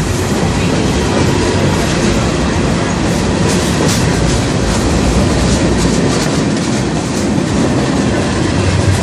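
Freight cars of a CSX mixed freight train rolling past close by: a loud, steady noise of steel wheels on rail, with a run of sharp clacks around the middle as wheels cross rail joints.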